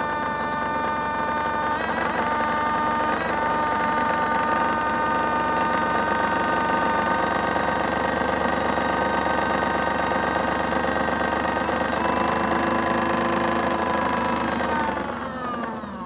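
Modified Miele W1 toy washing machine's small electric motor spinning the drum at speed: a steady whine that steps up in pitch in the first few seconds, then falls in pitch and fades as the drum spins down near the end.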